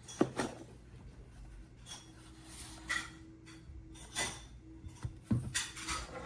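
Scattered knocks and clinks, as of hard objects being handled and set down, about half a dozen spread over several seconds with a cluster near the end, over a faint steady hum.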